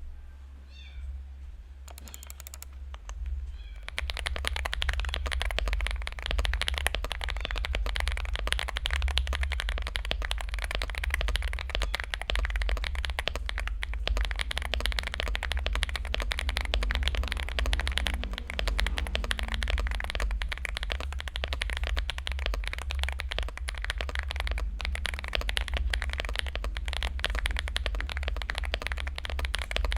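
Fast, continuous typing on a Finalkey V65 mechanical keyboard with lubed Akko Cream Yellow linear switches and stock Cherry-profile keycaps, tape- and foam-modded for a muffled, creamy sound. The typing starts about four seconds in after a quieter opening.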